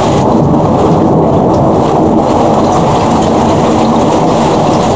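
Thunderstorm at night: a loud, steady, muffled rumble, deep and with little treble, with no single crack standing out.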